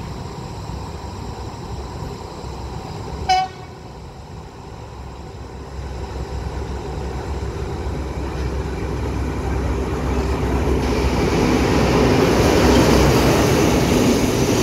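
A pair of Alstom diesel locomotives running light approach and pass close by, a rumble and rush of engines and wheels rising steadily to its loudest near the end. A single short, high train-horn toot sounds about three seconds in.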